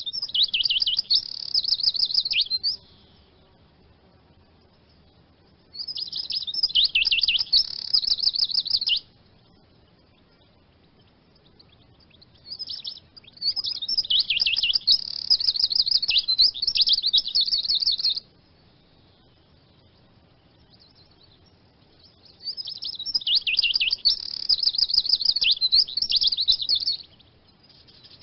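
Eurasian siskin singing: four phrases of rapid, high twittering, each lasting about three to six seconds, with quiet pauses of a few seconds between them.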